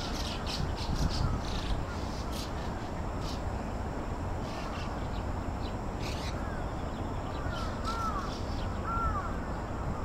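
A flock of birds calling, with many short chirps throughout and two clearer arching calls about eight and nine seconds in, over a steady low background noise.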